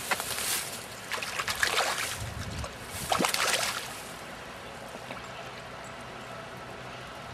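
Hooked trout splashing and thrashing at the water's surface while being played on a spinning rod, in three splashy bursts over the first few seconds, then only the steady sound of the water.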